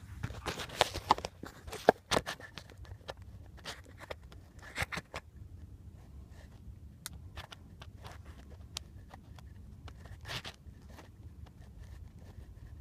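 Handling noise of trading card packs and cards: scraping, rustling and sharp clicks, busiest in the first few seconds, then sparser over a steady low hum.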